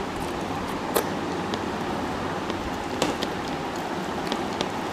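Eating with the hands: fingers working rice and curry on plates and chewing close to the microphone, over a steady background hiss, with a sharp click about a second in and another about three seconds in.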